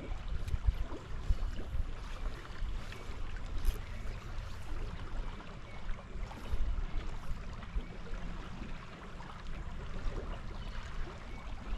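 Shallow river current running and gurgling over a rocky, mossy shoal, a steady rushing with a low rumble and faint scattered ticks.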